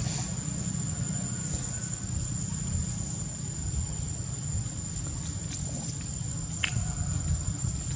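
Outdoor ambience: a steady, high-pitched insect drone over a low rumble, with one brief high chirp about two-thirds of the way through.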